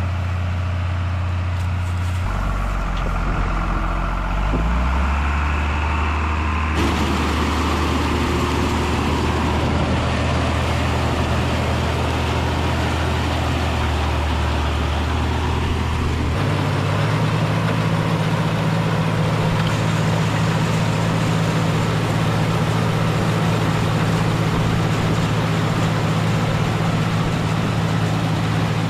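Tractor engine running steadily, its note shifting a few times, with a loud steady rush of machinery noise over it from about seven seconds in.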